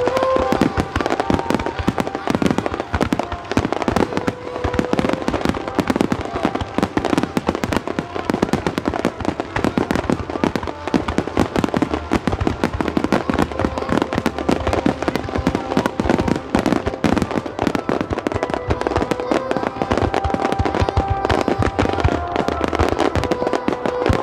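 Fireworks display: aerial shells bursting and ground fountains firing in a dense, continuous barrage of bangs and crackles, with music playing underneath.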